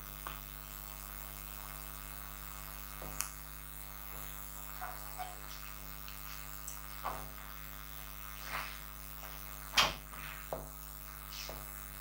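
Steady electrical mains hum, with faint, scattered short scrapes and taps of a pen drawing on an interactive display board, more frequent in the second half and loudest about ten seconds in.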